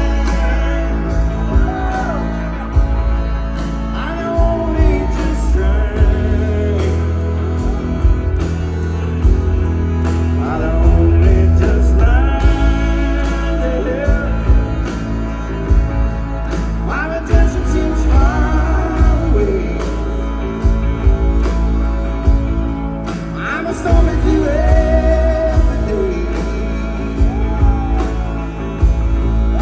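Live rock and soul band playing, with a male lead vocal over electric guitar, bass, drums, and a trumpet and saxophone horn section, heard from within the audience.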